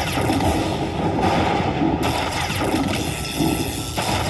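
Lightning Dollar Link slot machine playing its bonus-collection sound effects: electronic zaps and booms as lightning strikes collect the cash symbols and the win meter counts up.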